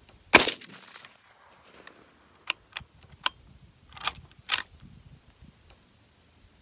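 A single shot from an Uberti 1873 Winchester short lever-action rifle firing .357 Magnum, with a short ringing echo. About two seconds later the lever is worked to cycle the action, making several sharp metallic clicks followed by two louder clacks.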